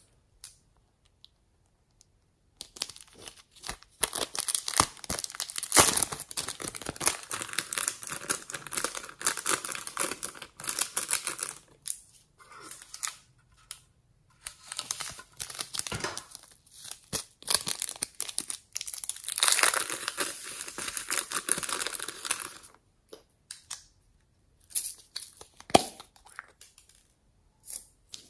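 Dense crackling and crinkling from a soft green silicone toy being handled and rubbed between the fingers close to the microphone. The sound comes in two long stretches with a short pause between them, and only scattered clicks follow.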